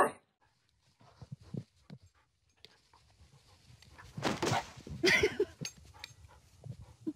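A dog's bark, cut off right at the start, then faint scattered outdoor sounds with a few short, louder sounds about four and five seconds in.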